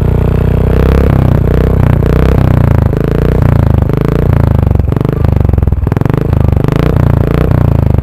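Royal Enfield single-cylinder engine running at a standstill through a Red Rooster Performance aftermarket silencer, a loud, deep, pulsing exhaust note that measures about 80 dB beside the tailpipe.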